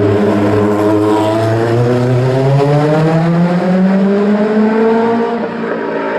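Rally car engine under hard acceleration, its pitch climbing steadily for several seconds and then falling near the end.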